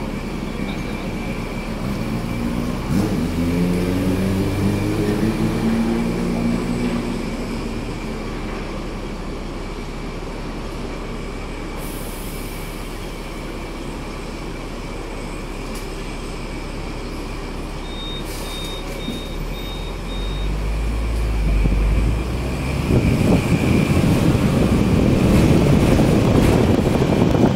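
Street traffic at a junction heard from the upper deck of a Hong Kong double-decker tram: an engine revs up a few seconds in, and a short run of high beeps sounds about two-thirds of the way through. Near the end a low rumble builds and grows louder as the tram pulls away along its rails.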